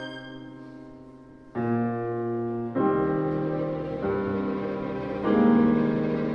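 String orchestra with piano playing slow, held chords: a chord fades away, a new one enters about one and a half seconds in, a fuller one about three seconds in, and the sound swells louder near the end.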